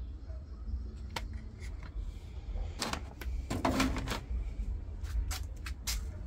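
Irregular clicks and knocks of hard parts being handled, with a denser clatter about midway and a quick run of clicks near the end, over a low steady hum.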